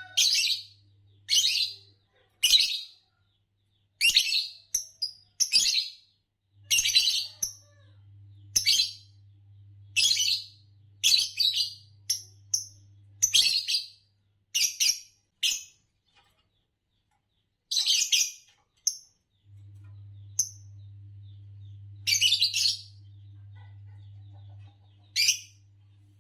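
Pair of green Fischer's lovebirds giving short, sharp, high chirps one after another at uneven intervals, with pauses of a second or two. A low steady hum comes and goes underneath.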